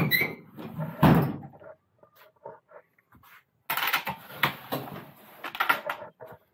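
Pickup tailgate latch clicks and the tailgate drops open with a heavy thud about a second in. From about halfway, a plywood box is dragged across the truck bed by its handle, a rough scraping with knocks that stops near the end.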